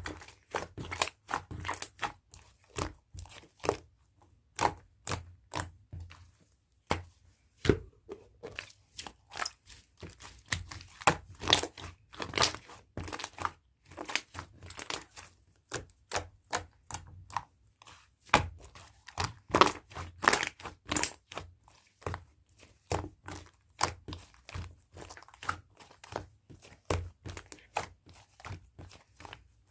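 Hands squeezing, pressing and stretching a soft, fluffy slime, making irregular sticky clicks and small air pops, several a second.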